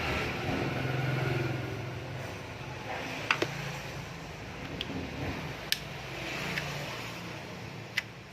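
A handful of short, sharp clicks from a fishing reel's small parts being handled during repair, two close together about three seconds in and the last near the end. Under them, a motor vehicle's low hum swells in the first two seconds and fades.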